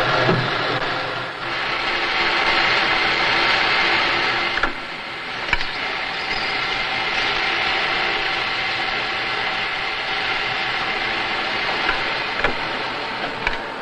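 Chipmaster centre lathe with hydraulic profiler and capstan attachment running and cutting steel: a steady machining din with several faint humming tones, broken by a few sharp clicks.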